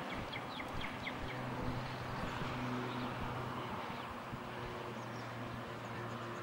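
Birds chirping in short, quick calls, several in the first second and a half and a few more later, over a steady low hum and outdoor hiss.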